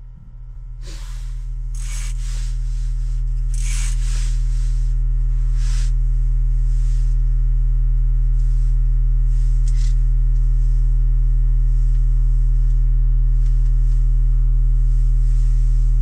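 A steady low hum of a few pure tones that swells over the first few seconds and then holds, with some brief rustling early on and again about ten seconds in.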